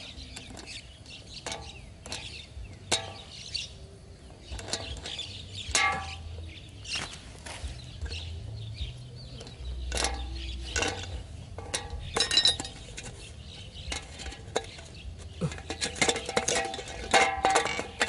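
Scattered sharp clicks and clinks of pliers and wire working on a thin aluminium drink can. From about two seconds before the end, a rapid clatter of clinks as the can spins on its wire axle.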